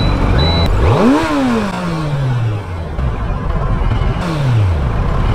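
Kawasaki Z900's inline-four engine revved twice through its stock exhaust. A quick rise in pitch about a second in falls away slowly, and a second rev falls off about four seconds in.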